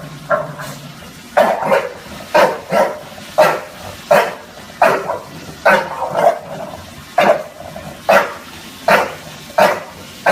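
Bulldog barking over and over in a steady string of loud, short barks, many of them in quick pairs about a third of a second apart.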